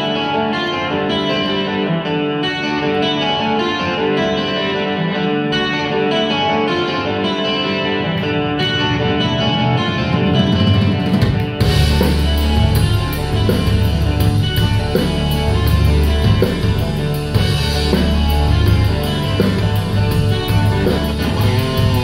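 Rock band playing live, opening with a melodic guitar part over sustained notes; about halfway through, bass guitar and drum kit come in and the full band plays on.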